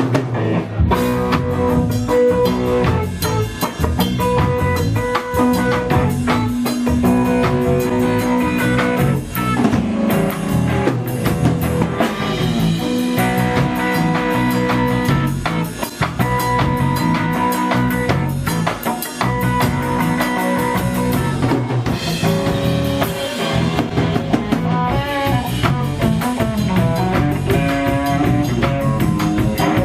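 Live band playing an instrumental passage of a song: guitar over a drum kit.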